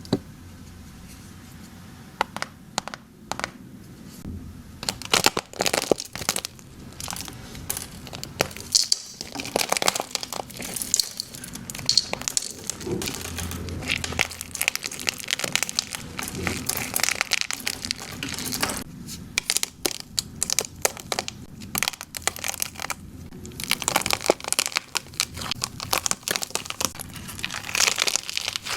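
Slime being squished and worked, giving dense flurries of crackling, crunchy pops, with a couple of quieter pauses between them.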